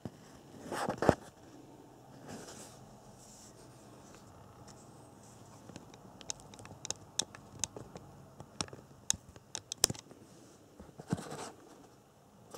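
Handling noises from a brushless RC motor and its cardboard box: scraping and rustling, a sharp knock about a second in, then a run of short, light clicks and taps between about six and ten seconds in.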